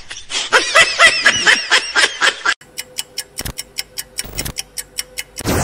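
Laughter for about two and a half seconds, then a countdown sound effect: evenly spaced ticks, about four a second, over a steady tone, ending in a falling whoosh.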